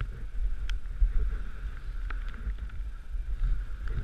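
Dog sled gliding along a snow trail: a steady rumble and hiss of the runners on snow, mixed with wind on the microphone, and a few light clicks.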